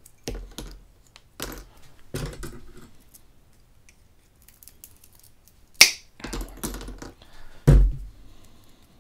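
Small side cutters snipping thin wooden sticks to length, a series of sharp snaps over several seconds, with short pieces clattering onto the cutting mat; a louder knock near the end.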